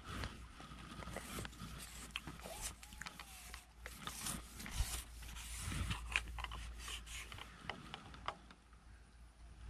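Scrapes and small clicks of a telescopic fishing pole being pulled out section by section, handled close to the microphone.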